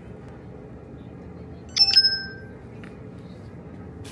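A brief metallic clink about two seconds in, a few quick taps followed by a short bell-like ring that dies away, over a low steady store background.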